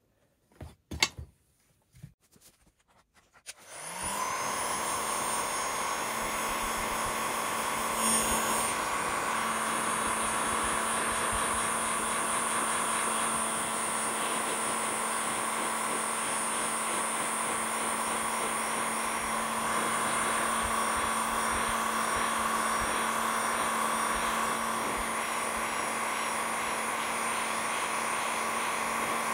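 Makita heat gun switched on about four seconds in, after a few light handling clicks and knocks, then running steadily with a fan whir and a constant hum.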